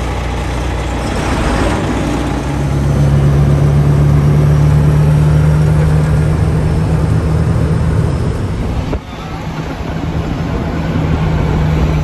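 Truck engine running while driving, heard from inside the cab as a steady low drone that gets louder a couple of seconds in. The level dips sharply and briefly about nine seconds in.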